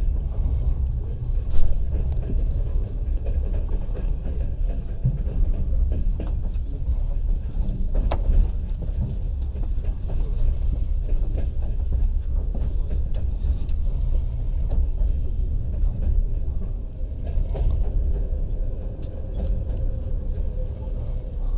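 Passenger train coach rolling along the track, heard from inside the carriage: a steady, deep rumble of the wheels on the rails, with a few sharp knocks, the loudest about a second and a half in.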